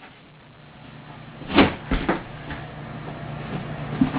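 A tool swung against a bathroom wall during demolition: a loud thud about a second and a half in, followed by a couple of lighter knocks and another blow near the end.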